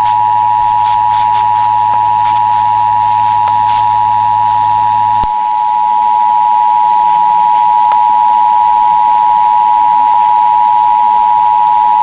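Emergency Alert System two-tone attention signal: a loud, steady alarm of two tones sounded together, which announces an emergency alert message. A low hum underneath cuts off about five seconds in.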